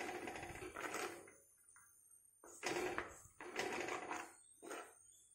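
Steel spoon stirring a thin prawn curry in a clay pot, in several separate strokes of scraping and sloshing.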